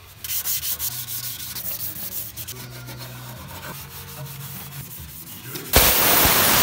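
Hand sanding of the VW Crafter's repaired bare steel front-corner panels, a gloved hand rubbing abrasive over the metal to prepare it for epoxy primer. Near the end a loud, steady hiss of a compressed-air tool starts suddenly.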